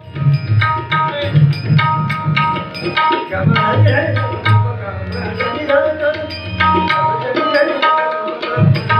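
Hand drumming in a fast rhythm: a high, tuned drum rings at a steady pitch over deep bass strokes, with a short pause in the bass near the end.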